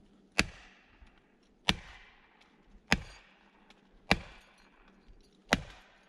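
An axe repeatedly driving a felling wedge into the cut of a large tree: five heavy, sharp blows about every second and a quarter, each with a short ringing tail. The tree is being wedged over because its lean was misjudged, as the faller himself says.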